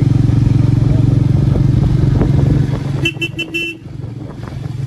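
Motorcycle engine running steadily, then easing off about three seconds in as a horn gives several quick toots.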